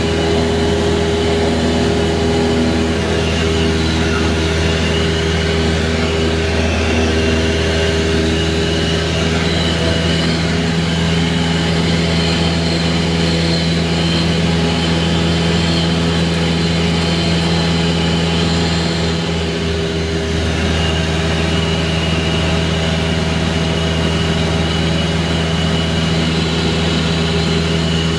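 Cessna 172's piston engine and propeller at a steady cruise, a constant drone heard inside the cabin; it dips slightly for a moment about twenty seconds in.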